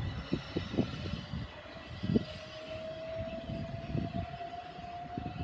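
Class 375 Electrostar electric multiple unit pulling away, its traction motor whine rising slowly in pitch as it accelerates, over an uneven low rumble.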